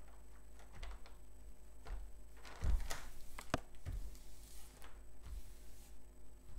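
Paper release sheet on a diamond painting canvas rustling and crinkling as it is laid back down and smoothed flat by hand, with scattered crackles and a few soft thumps on the table, the loudest about three seconds in.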